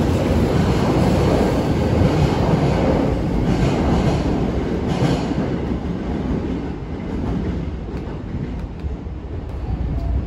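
Kyoto Municipal Subway 10 series electric train pulling out of the station, its wheels rumbling and clacking on the rails. The noise is loud for the first five seconds or so, then fades as the train leaves.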